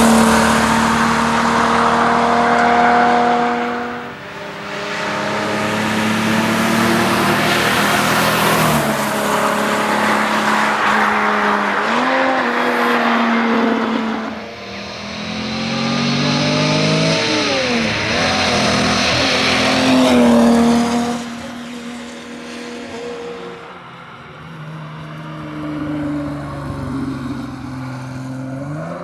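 A 1961 Ford Zephyr's straight-six engine running hard under rally driving, the revs climbing and falling. There are sharp drops about four seconds and fourteen seconds in, and the revs fall away and the engine quietens after about twenty seconds.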